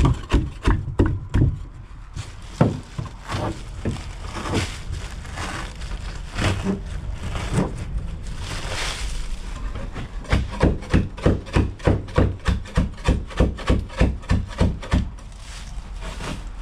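Hand scraper being driven against rotten wood in a boat, a run of quick strikes at about four a second, sparser knocks and scraping in the middle, then another fast run.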